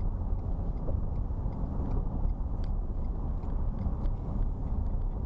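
Steady low road and engine rumble of a car driving, heard from inside the cabin, with a few faint light ticks.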